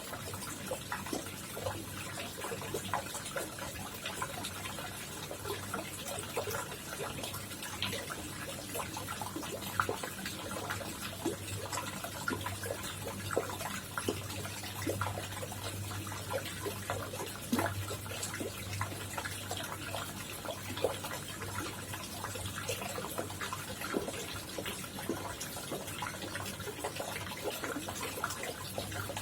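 Koi pond water trickling and splashing, with many small irregular drips and plops over a steady low hum.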